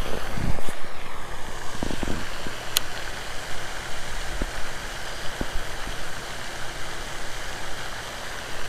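Wind rushing and buffeting on the microphone in a steady breeze, with a few light knocks and a sharp click about three seconds in.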